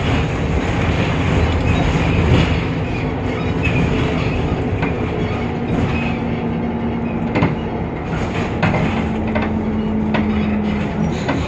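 Temsa Avenue LF city bus under way, its DAF PR 228 diesel engine and ZF Ecolife automatic gearbox running with a steady droning whine over road rumble. Short rattles and knocks come through at irregular intervals.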